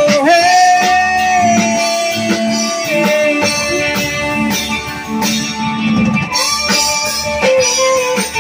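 Live band playing an instrumental passage: an electric guitar lead holds long notes, bending up into one near the start, over bass, drum kit and keyboard.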